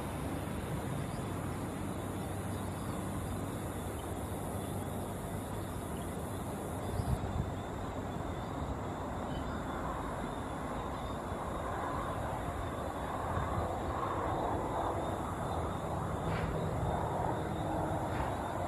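Boeing 747-400's jet engines running at taxi power as it turns on the runway: a steady rumble with a hiss that grows louder in the second half as the engines swing toward the listener. A brief thump comes about seven seconds in.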